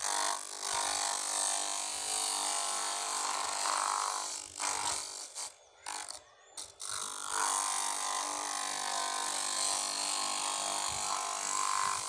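Electric water-pump motor converted into a disc sander, running steadily while a plywood board is pressed against its spinning sandpaper disc, giving a motor hum under a grinding rasp. The sound cuts out briefly a few times around the middle, then picks up again.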